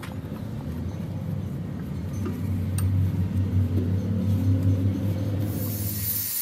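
A machine running with a low hum that grows louder over the first few seconds, joined near the end by a steady high hiss.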